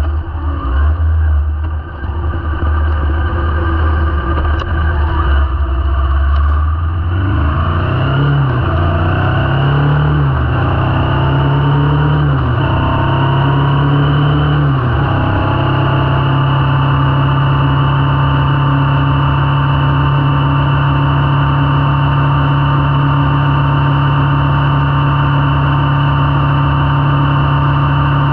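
Kawasaki Vulcan S parallel-twin engine heard from on the bike. At first it runs as an uneven low rumble. About seven seconds in it accelerates through several gears, each one a rising pitch that drops back at the shift, and then it settles into a steady cruising drone.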